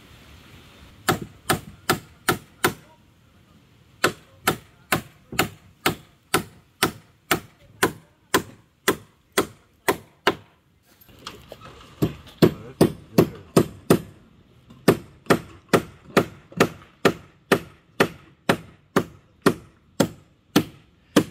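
A hammer driving nails into wooden 2x2 boards, steady strikes about two to three a second in several runs with brief pauses between them.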